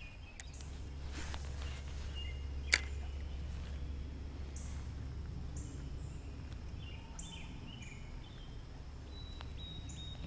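A fishing rod swishes through the air on a cast, followed by a single sharp click. A low wind rumble runs underneath, and several short high bird chirps come in the middle.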